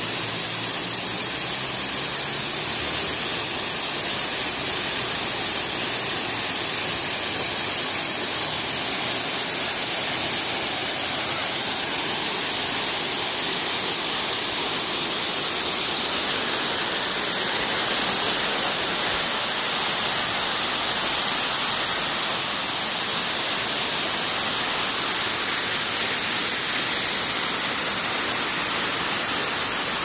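Steady, unbroken rush of water from a mountain waterfall cascading down rock.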